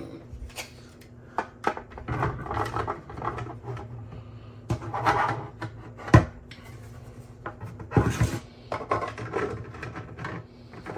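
3D-printed plastic helmet pieces being handled and pushed against each other: scattered clicks and light knocks with scraping rubs, and one sharp knock about six seconds in.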